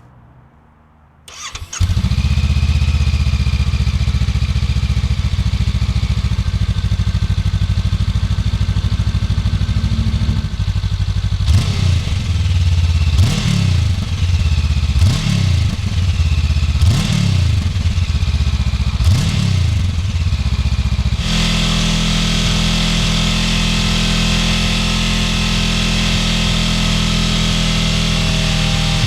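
Honda NX500's parallel-twin engine with its stock exhaust, started up after a moment's quiet and idling steadily. Midway it is blipped five times, each rev rising and falling back. Near the end it is held at a steady, higher engine speed.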